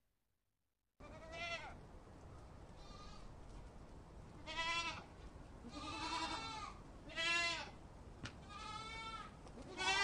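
Goat bleating again and again: about six short, quavering bleats a second or so apart, over a low steady hiss.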